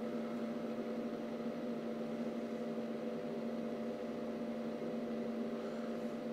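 Steady electrical mains hum from the powered-up test bench: one low tone with several fainter higher tones over a faint hiss, unchanging throughout.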